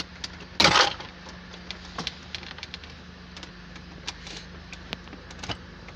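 Plastic interior trim of a Land Rover L322's centre console being handled during dashboard removal: a brief loud scraping noise just under a second in, then scattered light clicks and ticks of the plastic panels over a steady low hum.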